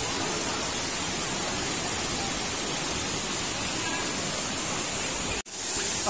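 Steady rushing of a tall waterfall pouring into its plunge pool, an even noise of falling water. It drops out for an instant near the end.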